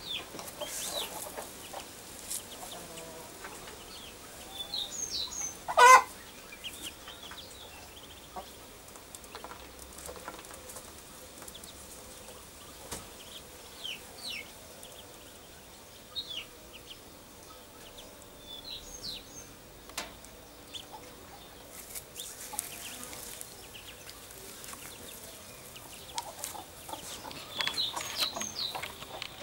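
Muscovy ducklings peeping: short, thin, high cheeps scattered throughout, with one loud short bird call about six seconds in.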